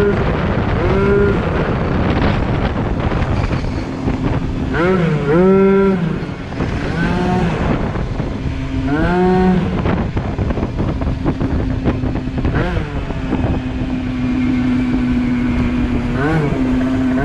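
Yamaha Aerox scooter's two-stroke engine with a Polini 70cc big-bore kit and Yasuni C16 expansion exhaust, revved up and down in short sweeps several times in the first half, then holding a steady note near the end. Wind and road noise run underneath throughout.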